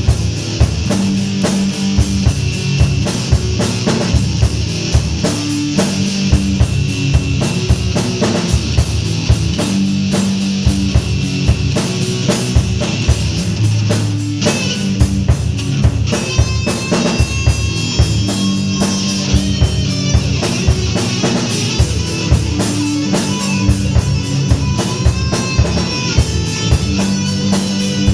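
Heavy metal instrumental passage: distorted guitars over a pounding drum kit with a busy kick drum. About halfway through, a higher melodic line joins in.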